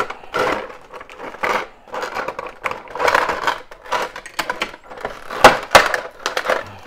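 Clear rigid plastic packaging crackling and clicking as it is handled and pulled apart, with two sharp snaps about five and a half seconds in.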